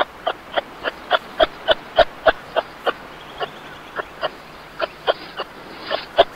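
Kangaroo giving a rapid series of short clucking calls, about three a second, more spaced out after about three seconds.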